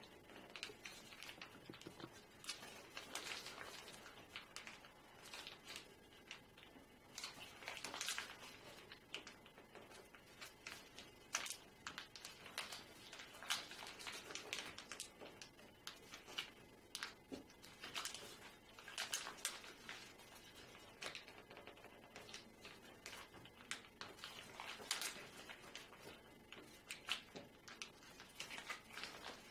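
Paper being folded and creased by hand: faint, irregular crinkles, rustles and scrapes as the edges of an origami paper octagon are folded in to the centre, one after another.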